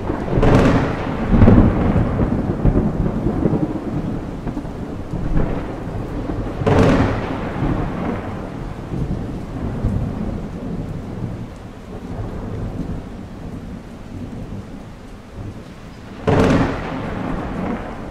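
Thunderstorm: three sharp thunderclaps, near the start, about seven seconds in and about sixteen seconds in, each rolling off into a low rumble, over a steady hiss of rain.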